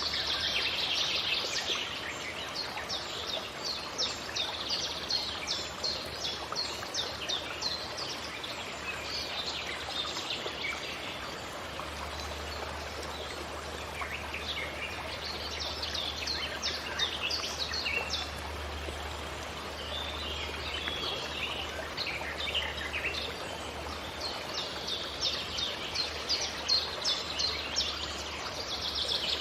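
Forest ambience: songbirds calling in bouts of rapid repeated chirps over a steady background hiss like running water.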